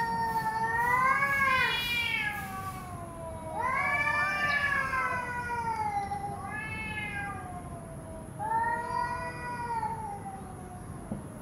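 Cats yowling in a territorial standoff: several long, wavering yowls that rise and fall in pitch, one overlapping another near the middle. The yowls are threat calls between two cats squaring up, one with its back arched.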